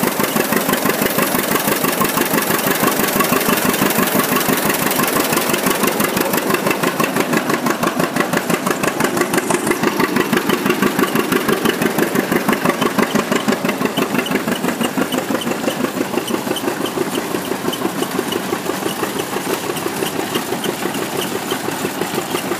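An engine running steadily with a regular pulsing beat, belt-driving a 28-inch IHC wooden threshing machine on its first run in 59 years.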